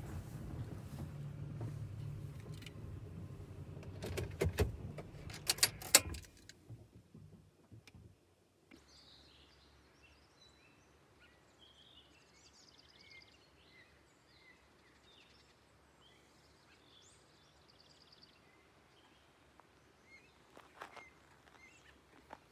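A low rumble with a few sharp knocks for the first six seconds, then a quiet stretch with small birds chirping in quick short calls.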